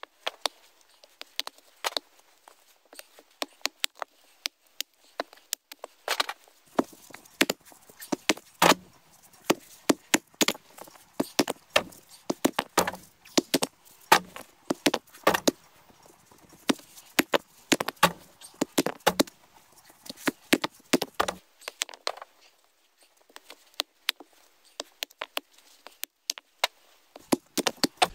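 Sharp, irregular knocks and cracks of wood being worked by hand. They come sparsely at first, then thickly for about fifteen seconds with some heavier thumps among them, then thin out again.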